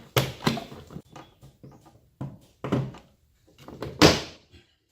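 Plastic door trim of a Ford Territory's front door being pried off its push-in clips: a series of sharp pops and knocks, the loudest about four seconds in.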